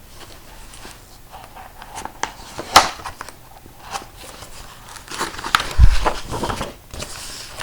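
Paper rustling and crinkling with scattered small clicks and a soft thump about six seconds in: the pages of a picture book being handled and turned.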